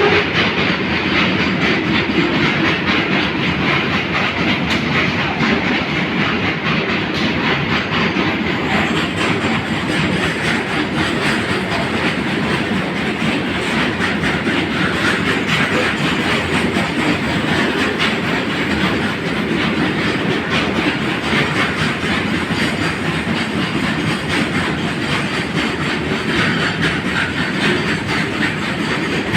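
Indian Railways goods train rolling past at steady speed, a continuous rumble with the wheels clattering over the rail joints.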